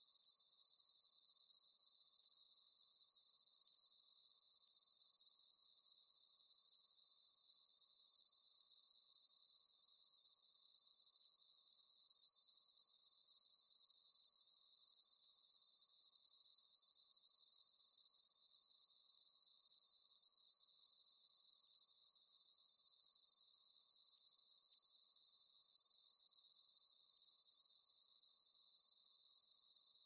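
Night jungle insects chirring in a steady, high-pitched chorus that pulses evenly, with no low sound beneath it.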